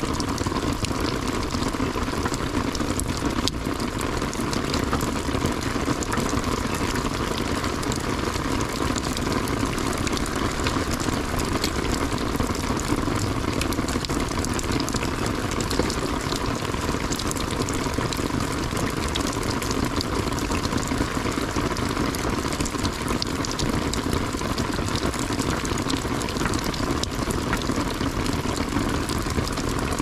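Steady rain falling, an even hiss of drops that keeps up without a break.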